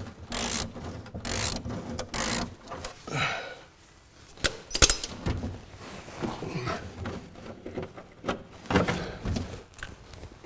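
Hand-tool work on a Land Rover Series 3's front wing bolts inside the wheel arch. Four scraping strokes come about a second apart, then a sharp metallic clink about five seconds in, followed by scattered knocks and rubs.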